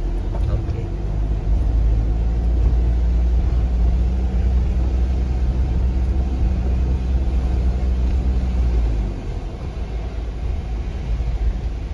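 Car engine and road rumble heard from inside the cabin of a moving taxi: a steady low drone that eases off about nine seconds in.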